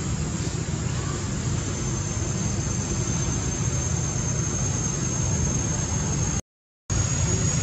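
Steady outdoor background noise: a low rumble with a thin, steady high-pitched whine over it, cutting out completely for about half a second near the end.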